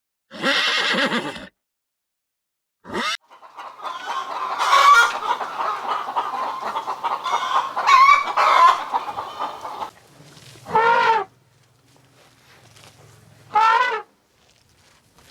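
A flock of chickens clucking busily for about seven seconds. A short, rough animal call comes before it at the start, and two short meows come near the end.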